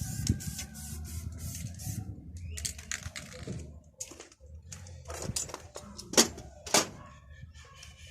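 Irregular sharp clicks and light knocks, as of hand work with tools and parts, with the two loudest knocks about six and seven seconds in.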